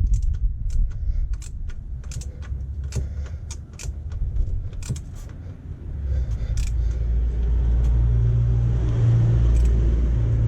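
Hand tools at work on an engine: a ratchet and metal parts clinking, with irregular sharp clicks through the first six seconds or so, over a low rumble that grows louder about six seconds in.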